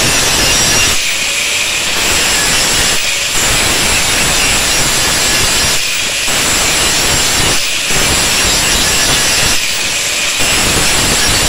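Handheld angle grinder with an abrasive disc cutting through steel saw-blade stock: a loud, steady grinding hiss that drops back briefly about five times, every couple of seconds.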